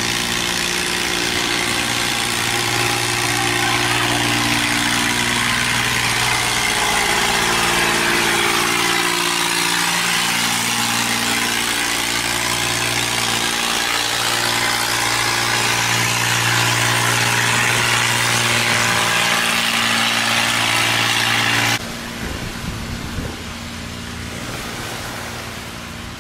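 A boat's engine running hard as the boat pushes through fast water rushing through a sluice gate. The engine's steady drone is laid over the loud rush of water and shifts in pitch a few times. About 22 seconds in it cuts off abruptly to a quieter river scene with a fainter engine.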